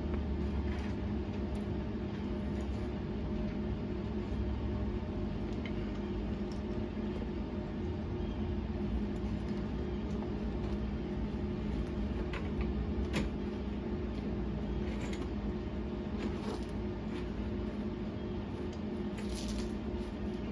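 Steady electrical machine hum with several fixed low tones, broken by a few faint ticks and short hissy bursts.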